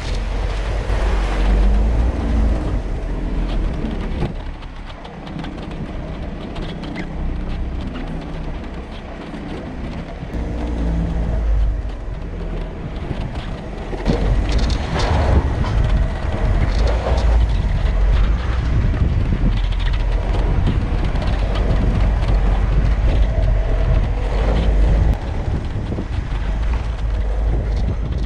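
Off-road vehicle driving along a rough track: a steady, heavy low rumble of engine and drivetrain, with scattered knocks and rattles.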